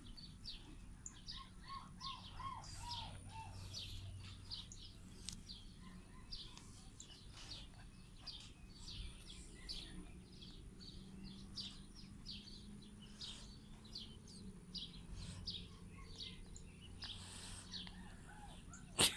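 Small birds chirping faintly in quick, short, repeated notes, with a short run of lower falling notes in the first few seconds.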